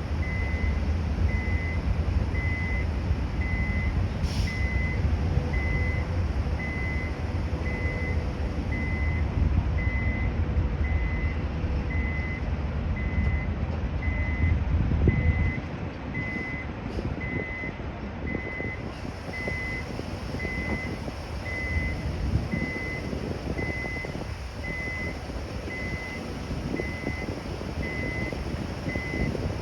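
Construction vehicle's reversing alarm beeping at regular intervals on one steady pitch, over the low rumble of a heavy diesel engine. The engine rumble drops away suddenly about halfway through while the beeping continues.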